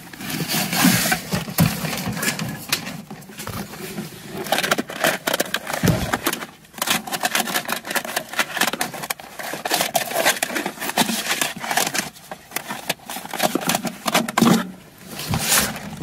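Belongings being rummaged through by hand: an irregular stream of rustles, scrapes and knocks from plastic bags and hard plastic items being shifted and handled.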